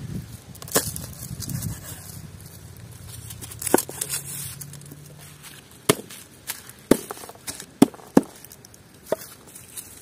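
A series of sharp knocks and cracks, about eight at irregular intervals, most of them and the loudest in the second half.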